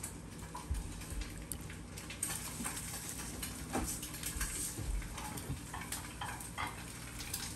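Small kitchen handling sounds over a bowl of soy-marinated crab: light clicks of a ladle against the bowl, and a soft fine patter of sesame seeds being sprinkled onto the crab from about two seconds in to about five.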